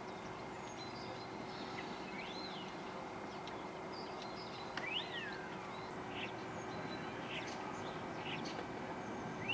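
Small garden birds chirping faintly and now and then, a few short rising-and-falling calls, over a steady low background hum.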